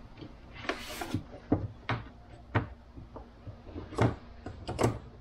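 Hand tools being handled and set down on a cluttered workbench. About six short, sharp knocks and clinks, with a scrape about a second in.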